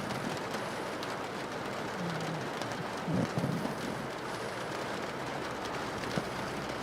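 Steady rain on a window, with a pug snoring: a short low breath sound about two seconds in and a louder snore about three seconds in.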